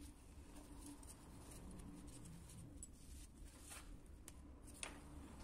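Near silence, with a few faint light clicks and rustles as small metal lamp parts are handled in gloved hands, the sharpest click near the end.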